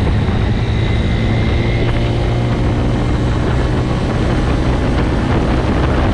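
Vehicle driving at a steady cruise: the engine's low, even hum under a constant rush of road and wind noise.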